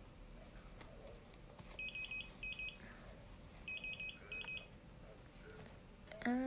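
Electronic alarm from hospital bedside equipment beeping in short groups of rapid high beeps, repeating about every two seconds. Near the end a woman starts humming.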